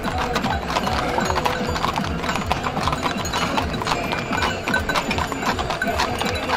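Horses' hooves clip-clopping on asphalt, many overlapping strikes from several horses pulling carriages and carts past, with music alongside.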